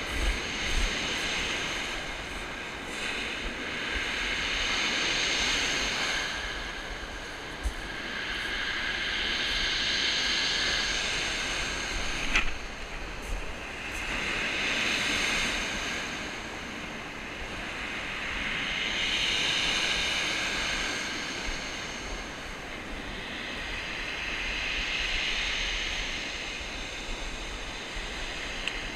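Waves breaking and surging up a shingle beach, one hissing swell about every five seconds, over the low rumble of wind on the microphone. A single sharp click comes about twelve seconds in.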